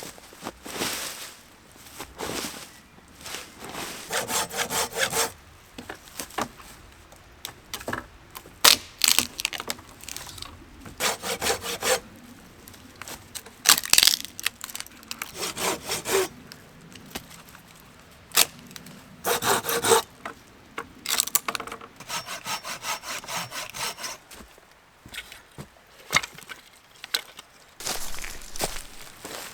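Wood being worked by hand: short runs of rapid rasping strokes, with several sharp cracks and knocks between them.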